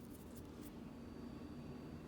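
Quiet kitchen room tone: a steady low hum with a few faint light clicks in the first second.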